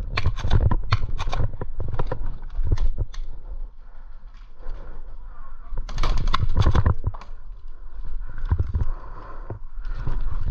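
Sharp knocks and clicks in quick clusters over a steady low rumble: the clatter of play in an airsoft game.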